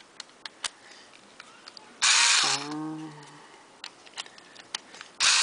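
Scattered light clicks as a small cordless electric screwdriver works the center tension screws of a plastic 3x3 speed cube, loosening each screw a little.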